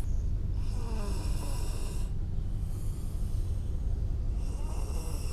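Toddler snoring in her sleep: two long, noisy breaths about four seconds apart, over a steady low hum.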